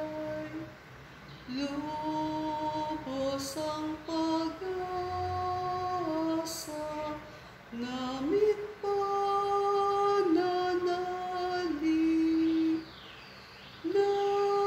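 A woman singing a slow Tagalog devotional hymn, one melodic line of long held notes with short pauses for breath between phrases.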